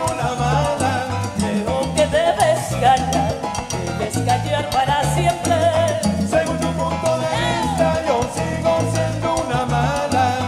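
Live salsa band playing: a steady bass line and Latin percussion under a gliding melody line.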